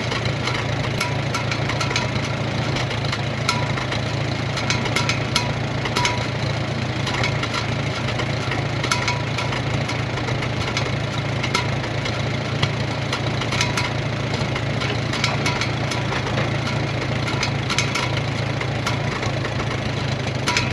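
1941 Farmall M tractor's four-cylinder engine running steadily, with scattered sharp ticks over its steady low sound.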